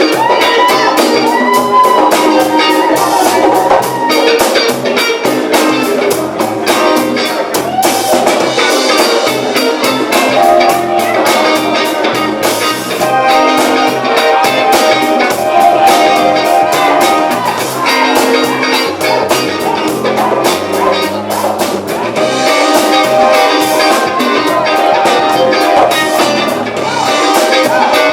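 Live funk band jamming, with a drum kit keeping a steady beat under sustained melodic instrument lines.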